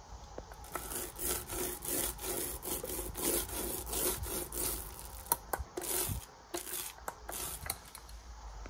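Paint roller rolling green paint onto a cabinet panel in repeated back-and-forth strokes, with a few sharp clicks around the middle.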